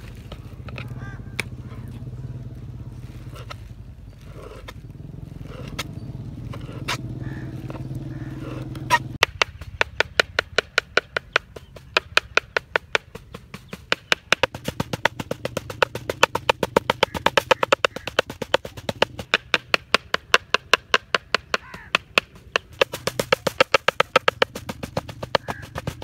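Large knife chopping deboned dove meat into mince on a plastic cutting board: fast, even knocks of the blade on the board, several a second, starting about nine seconds in. Before that, a low steady hum with only a few scattered knocks.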